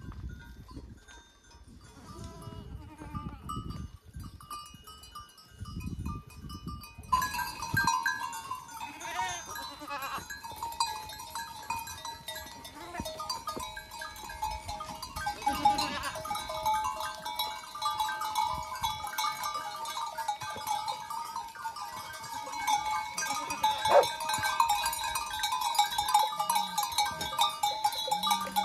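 A large mixed flock of goats and sheep bleating, many animals calling at once and overlapping continuously. For the first seven seconds or so there is only a low rumble before the flock comes in suddenly.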